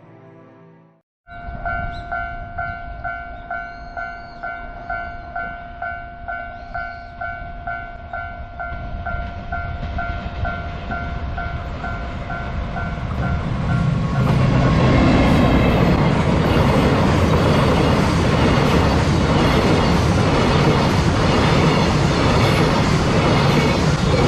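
Level-crossing alarm bell ringing about twice a second. About halfway through, a freight train hauled by an EF210 electric locomotive comes past, and the loud rumble of the locomotive and wagons over the rails drowns out the bell.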